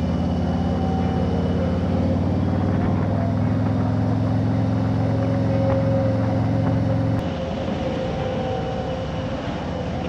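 Harley-Davidson Road King's V-twin engine running steadily at cruising speed, with wind and road noise. About seven seconds in the engine note drops away, leaving mostly wind and road rush.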